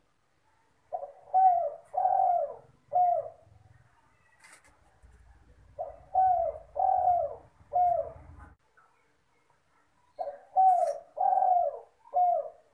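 Spotted dove (derkuku/tekukur) cooing: three phrases a few seconds apart, each of about four low, arching coos with the third note drawn out longest.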